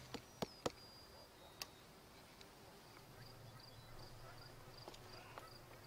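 Insects chirping faintly outdoors, a high pulse repeating about four times a second, with a few sharp clicks in the first two seconds.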